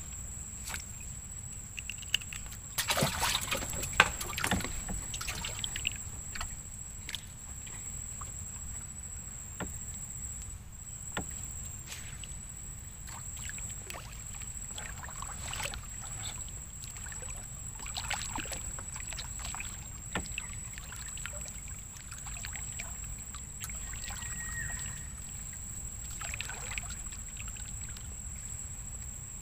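Single wooden paddle dipping and pulling through river water beside a small wooden boat, with scattered splashes and knocks that are busiest a few seconds in, over a steady low rumble and a faint steady high tone.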